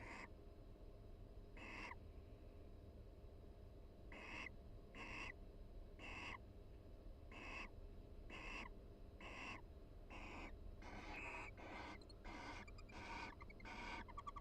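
Barn owls calling softly to each other in the nest box, a series of short, raspy calls that come faster in the second half, the quiet contact calls of a relaxed mated pair.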